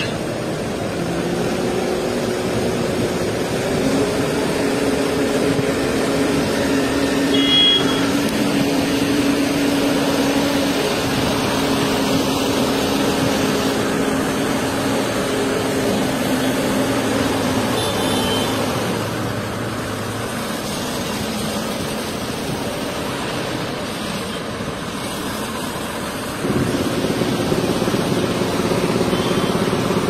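Diesel engine of a mobile crane running steadily under load while it lifts a concrete bridge girder. A couple of short high-pitched peeps sound over it, and the sound steps up louder near the end.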